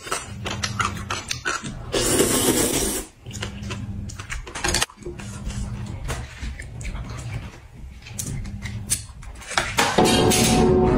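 Close-up eating sounds from a woman eating sour-and-spicy noodles: chopsticks clicking against bowls, and a loud slurp about two seconds in. Music comes in near the end.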